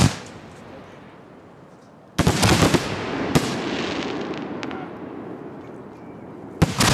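Professional display firework shells bursting: a loud bang at the start, a cluster of bangs about two seconds in that fades away slowly with another report in the tail, and another loud burst near the end.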